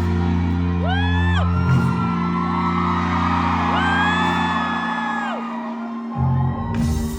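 Live band music heard from the crowd: held low chords under long sung notes that slide up and down, then the drums and bass come in with a beat about six seconds in.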